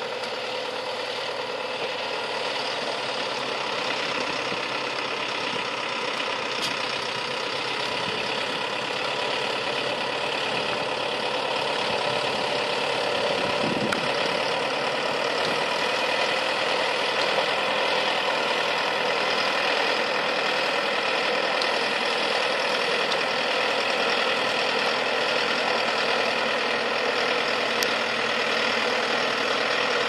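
Zetor 9641 tractor's four-cylinder diesel engine running steadily under load, pulling a four-furrow plough through the soil. It grows a little louder over the first half, then holds steady.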